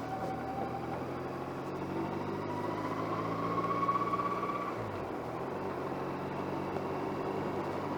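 Motorcycle engine running under way, heard through a microphone in the rider's jacket pocket, with a muted wind rush. A whine climbs in pitch for a couple of seconds and breaks off a little before halfway, as the engine note shifts.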